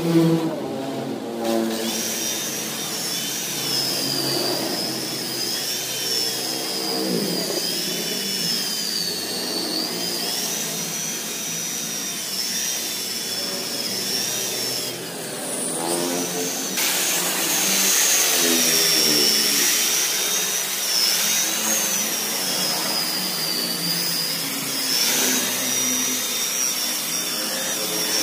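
Handheld electric rotary car polisher running against the paint with a high motor whine that wavers in pitch. It stops for a moment around halfway through and then spins back up.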